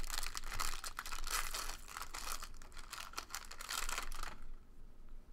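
A trading-card pack wrapper being torn open and crinkled, a dense crackling that stops about four seconds in.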